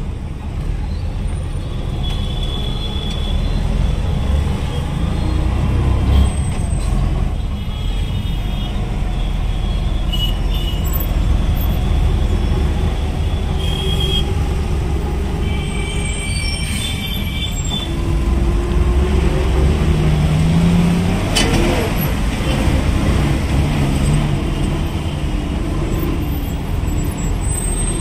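Dense city road traffic: vehicle engines running with a steady low rumble, short high-pitched tones here and there, and a sharp hiss about twenty seconds in.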